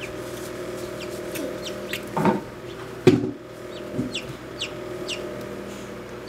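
Silkie chicks peeping: repeated short, high peeps, each falling in pitch, about two a second, over a steady low hum. A sharp knock sounds about three seconds in.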